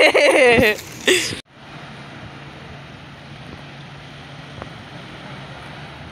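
A person's voice calls out briefly, then the sound cuts to steady, even beach ambience of calm surf and open air, with a faint low hum underneath.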